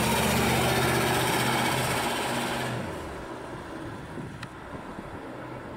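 AMC Matador coupe driving close past, its engine running with a steady low note over tyre and road noise. About three seconds in it drops suddenly to a quieter engine sound as the car moves away.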